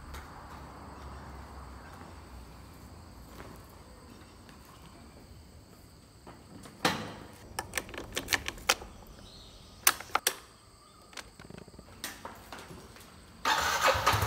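Sharp clicks and knocks as a rider handles a scooter's ignition key and controls with gloved hands. Near the end a much louder sound cuts in: the scooter starting up.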